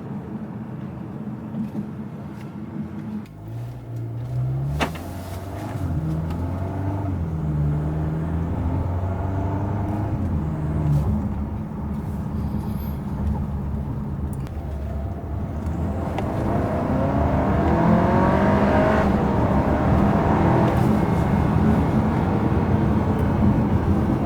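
Volkswagen Arteon's 2.0 TSI turbocharged four-cylinder engine and exhaust, running steadily at first. From about three seconds in the revs climb and drop in steps through gear changes, with a sharp click near five seconds. In the last third it accelerates hard and grows louder.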